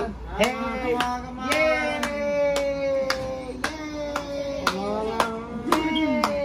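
Singing in long held, slowly gliding notes, with hand claps keeping a steady beat of about two a second.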